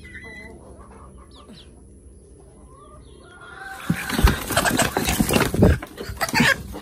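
Chickens clucking softly, then about four seconds in a loud burst of flapping wings and scuffling as a chicken is grabbed by hand. The burst lasts a few seconds.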